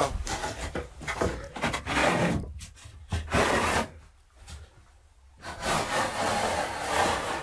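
Wooden sliding cabinet door scraping in its track as it is slid by hand: a few rasping strokes, the last and longest near the end.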